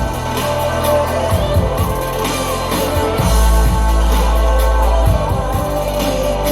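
Music playing loud from a JBL Boombox 3 portable Bluetooth speaker at full volume, with heavy bass notes, a drum beat and a sung line over it. The bass swells strongest for a couple of seconds in the middle.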